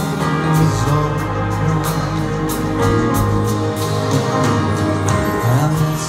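A man singing a slow, tender ballad live, with held notes that glide in pitch, over a Kawai stage piano's accompaniment.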